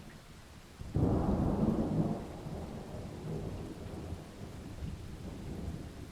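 Thunder in a thunderstorm: a sudden loud peal breaks about a second in, then a low rumble rolls on and slowly fades.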